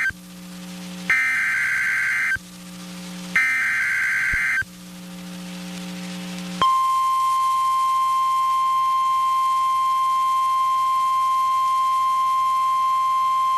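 NOAA Weather Radio emergency alert: the end of one Specific Area Message Encoding (SAME) header burst, then two more short screeching digital data bursts about a second apart, with a low hum between them. About six and a half seconds in, the steady 1050 Hz warning alarm tone starts and holds. Together they announce a new severe thunderstorm warning.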